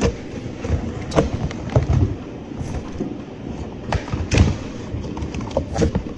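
Cardboard shipping box being handled and cut open: flaps pulled and scraped, a small cutter run along the packing tape, with many sharp clicks and several heavier thumps against the box.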